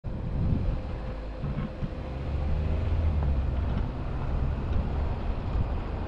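Low rumble of a moving vehicle's engine, with wind buffeting the microphone.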